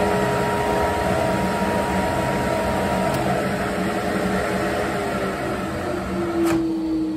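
Ridgid oscillating spindle/belt sander running with no workpiece on it: a steady motor hum. About six and a half seconds in, its switch clicks off and the hum falls in pitch as the motor spins down.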